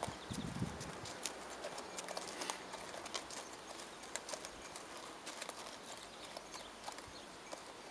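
A horse walking on a dirt track, its hooves making faint, irregular clip-clop clicks.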